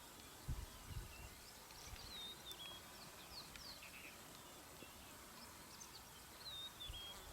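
Faint outdoor bush ambience with small birds chirping: a short high phrase repeated about two seconds in and again near the end, with scattered other chirps. A few soft low thumps come about half a second and a second in.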